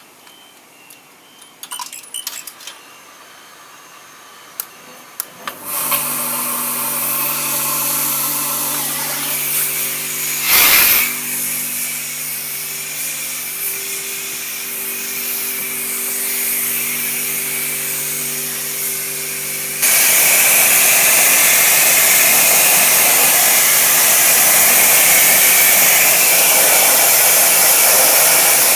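Pressure washer: a few handling clicks, then about six seconds in its motor and pump start with a steady hum, with one brief loud burst partway through. About twenty seconds in the high-pressure spray opens with a sudden loud, steady hiss of water jetting onto the Plasti Dipped wheel rim.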